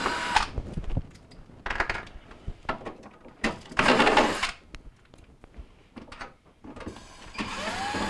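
Cordless drill/driver running in about four short bursts, backing out the quarter-inch screws at the corners of a refrigerator freezer's back panel; the burst about four seconds in is the loudest, and the last one rises then falls in pitch as the motor spins up and stops. Light clicks and handling knocks come between the bursts.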